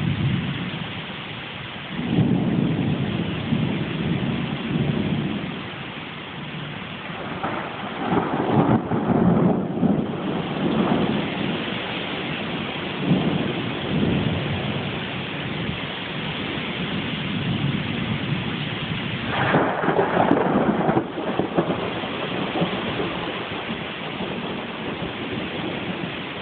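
Thunder rumbling in several rolling peals over steady heavy rain, the loudest peal about twenty seconds in.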